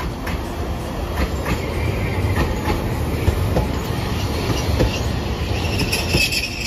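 Hiroden 3700-series articulated tram passing close by, running with a low rumble and irregular sharp knocks from its wheels on the track. A thin high wheel squeal comes in near the end.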